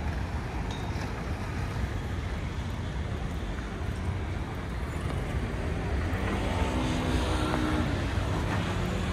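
Street traffic noise with the low rumble of nearby double-decker buses. About six seconds in, a steady engine hum comes in and the sound grows slightly louder.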